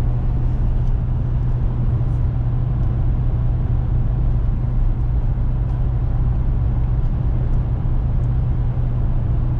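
Pickup truck under way on the road, towing a loaded trailer: a steady low engine drone with road noise.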